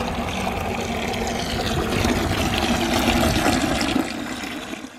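A stream of dirty water from a wet tile saw's tray pouring and splashing into a partly filled plastic bucket, fading away near the end.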